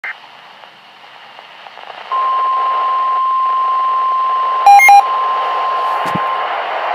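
NOAA Weather Radio broadcast: faint static hiss, then about two seconds in the steady warning alarm tone comes on and holds, the signal that a warning message follows. Just past halfway, two short loud beeps sound over it.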